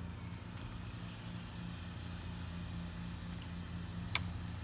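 A steady low mechanical hum, pulsing slightly and regularly, over faint outdoor hiss, with a single sharp click about four seconds in.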